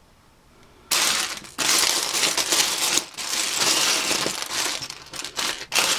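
Loose plastic Lego bricks clattering and rattling as hands rake through a pile of them. The clatter starts suddenly about a second in.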